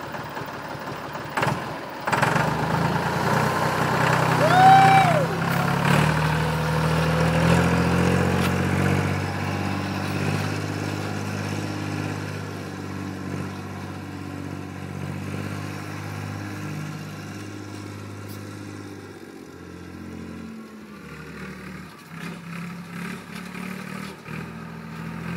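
Massey Ferguson tractor engine starting about two seconds in and then running as the tractor drives off, growing fainter as it moves away. A brief high squeal rises and falls about four to five seconds in.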